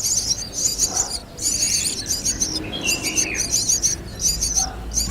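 Small birds chirping rapidly and high-pitched in quick runs, with a few brief pauses.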